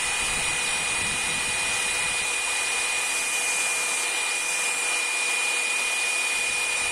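Small bench belt sander running with a 5160 spring-steel knife blade held against the belt, grinding the coarse edge bevel: a steady hiss with a high, constant whine.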